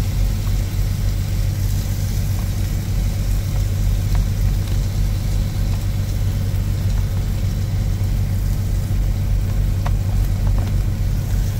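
Big-rig truck engine idling: a steady low rumble that does not change, with a few faint clicks.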